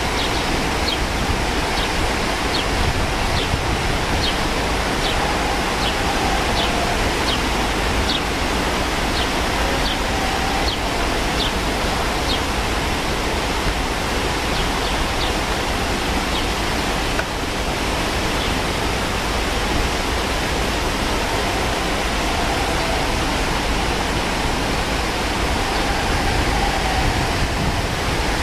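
The Hasbani stream's white water rushing over rocks, a steady, unbroken rush. Short, high chirps repeat about twice a second through roughly the first half.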